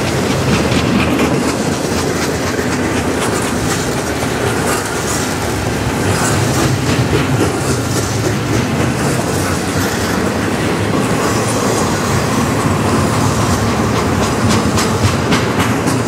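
Double-stack intermodal container train rolling past at close range: a steady rumble of steel wheels on the rails with the clickety-clack of wheels passing over rail joints.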